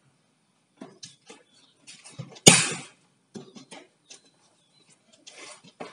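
Locks on a submersible pump's packaging being worked loose and pulled out by hand: scattered clicks and scrapes, with one loud sharp snap about two and a half seconds in.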